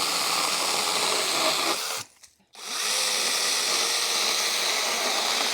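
Imoum 6-inch cordless mini chainsaw with a 21-volt brushless motor running at full speed with a steady high whine, in two runs with a short stop about two seconds in.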